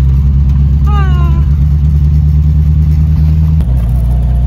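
Suzuki 4x4's engine running while driving, a steady low drone inside the cab. About a second in there is a short falling tone, and near the end the drone changes at an edit, with a faint steady whine over it.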